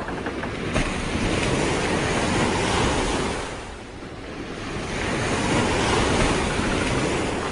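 A loud, even rushing noise that swells, eases off about halfway through, and swells again. A quick run of faint ticks fades out in the first second.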